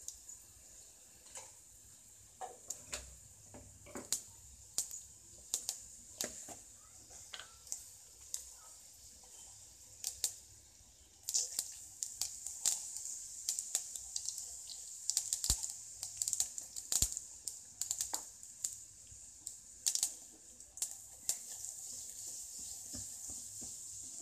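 Hot oil sizzling in a steel pot with dried red chillies and seeds frying, crackling with scattered sharp pops. About eleven seconds in, ground spice powder is spooned in and the sizzle grows louder and busier, with more frequent pops.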